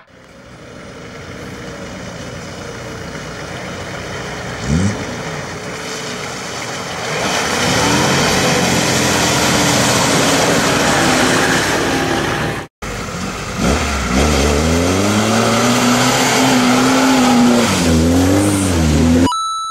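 Off-road SUV engine pulling under load as a Nissan Patrol wades through a flooded rut, with water splashing and surging. After a cut, a Lada Niva's engine revs up and down repeatedly while its wheels churn through deep mud.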